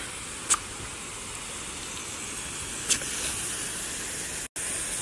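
Garden hose spray nozzle hissing steadily as it sprays a jet of water across a lawn, with two brief sharp sounds about half a second and three seconds in. The sound cuts out abruptly near the end.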